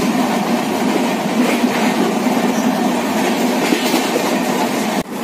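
Puri–Howrah Express passenger coach pulling out of the station, a steady noise of wheels on the rails. It cuts out briefly near the end.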